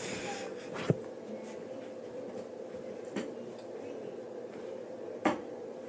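Small-room tone with a steady hum, broken by three short knocks: a sharp one about a second in, a softer one near three seconds and another a little after five seconds.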